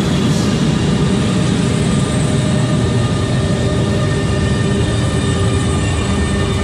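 Metro train running: a loud, steady rumble with a steady whine over it.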